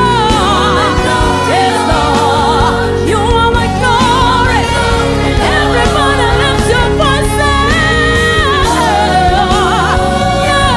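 Gospel worship music: singing with vibrato over sustained keyboard and instrumental accompaniment.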